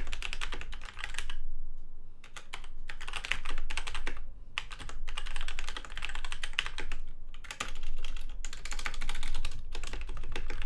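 Fast typing on a DMK02 87-key mechanical keyboard with off-brand red linear switches. The key strokes come in quick runs broken by brief pauses.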